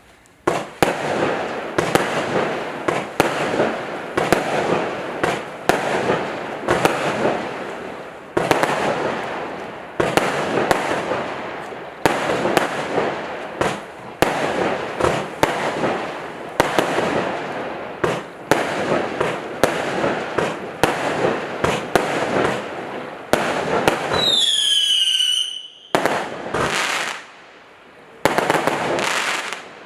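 A 36-shot, 0.8-inch fireworks cake firing in rapid succession: a sharp report every half second to a second, each followed by a noisy rush of bursting. About 24 seconds in, a descending whistle sounds, then a few last shots.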